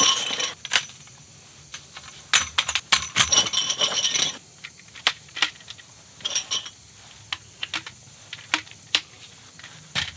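Frame poles of a folding camp bed clinking and clattering as they are pulled from their carry bag and handled: a dense run of clinks about two to four seconds in, then scattered single clicks.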